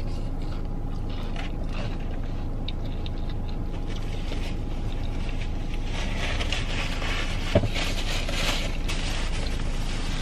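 Steady low hum inside a car cabin. About six seconds in, a paper napkin rustles for a few seconds, with a single click in the middle.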